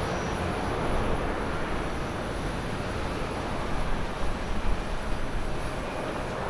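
Airbus A330-200's Rolls-Royce Trent 700 turbofans at takeoff power during climb-out just after lift-off: a steady, broad jet roar that eases slightly as the aircraft climbs away.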